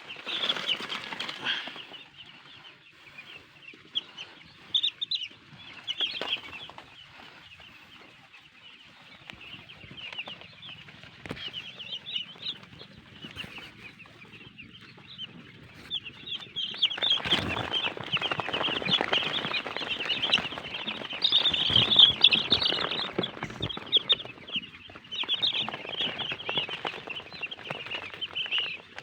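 A large brood of day-old broiler chicks peeping together in many overlapping high chirps. The peeping grows louder and busier about halfway through, with rustling underneath, then eases off again.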